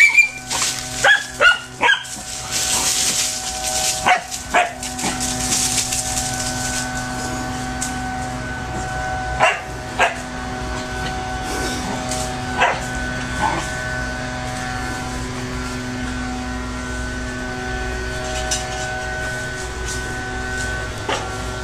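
Small dog barking and yipping: a quick string of sharp barks in the first few seconds, then single barks every few seconds. A steady hum runs underneath.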